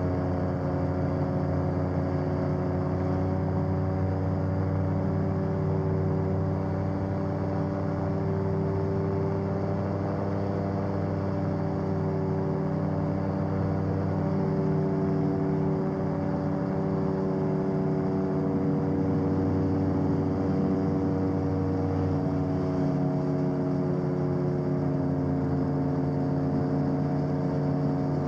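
BAD-12 Gyrotrainer gyroplane engine running steadily in flight, heard from inside the cabin, its pitch shifting slightly now and then.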